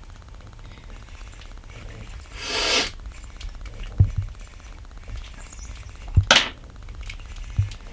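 Handling noises: a brief swishing hiss about two and a half seconds in, then a few dull thumps and one sharp knock over a low steady rumble.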